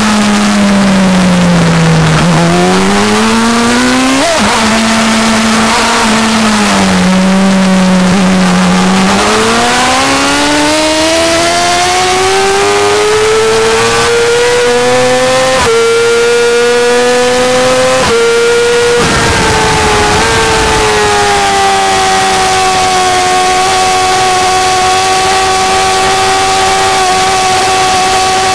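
2008 Yamaha YZF-R6's inline-four engine at track speed, with wind noise. The pitch falls as the bike slows, then climbs in long pulls broken by short drops at the upshifts. It settles into a steady high note for the last several seconds.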